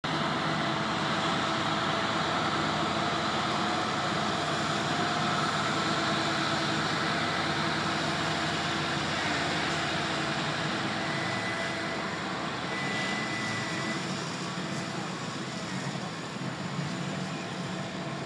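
A steady engine drone with a few held tones under it, easing off gradually over the second half.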